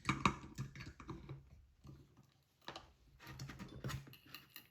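Metal hand tools clicking and knocking as a second pair of pliers is picked up and set on a screw to cut it: irregular short clatters in two bunches, the loudest near the start.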